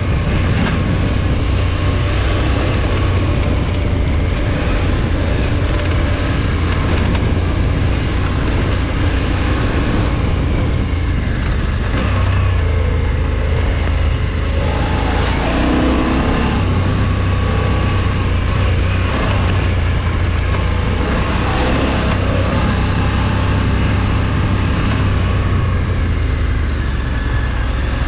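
KTM 1290 Super Adventure's big V-twin running steadily on a gravel road, with wind rush and the crunch of tyres on gravel.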